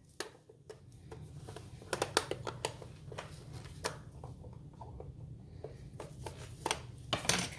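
Cornbread batter being mixed by hand in a bowl: scattered light clicks and knocks of the utensil against the bowl, over a low steady hum.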